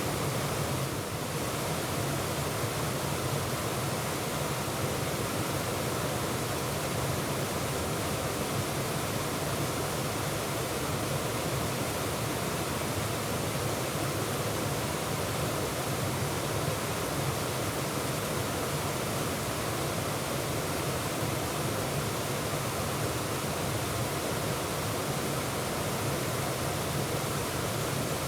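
Waterfall rushing steadily: a constant full white-water roar with no breaks or changes.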